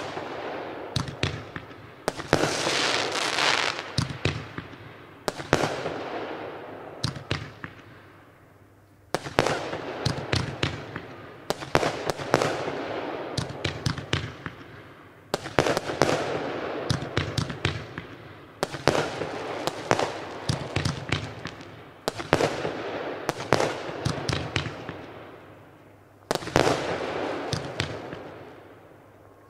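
Consumer firework battery firing. About nine volleys, one every three to four seconds, each a sudden burst followed by crackling that dies away.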